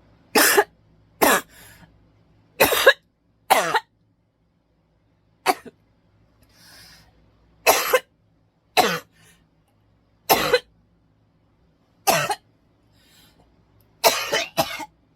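A person coughing over and over in single, sharp coughs, about a dozen of them, one to two seconds apart, with the last two coming close together. A faint breath is drawn in between coughs.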